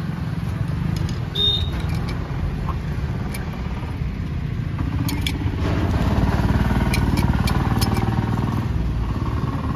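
Steady low engine rumble of motor traffic, growing louder about halfway through, with a few light clicks.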